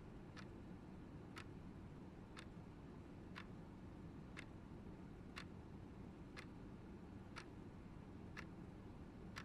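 Faint clock ticking steadily, one tick a second, over a low room hum.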